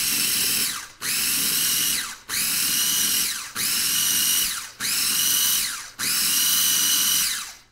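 Small electric food processor pulsed six times in a row, each burst about a second long, its motor whine falling in pitch as it spins down between pulses. It is cutting cold cubed butter into the flour mixture.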